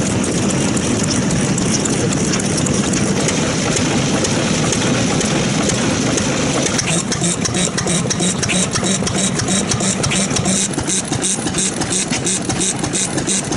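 Vintage stationary engines running with a steady train of exhaust beats. About halfway through the sound changes to a sharper, more distinct run of beats, as a different engine is heard.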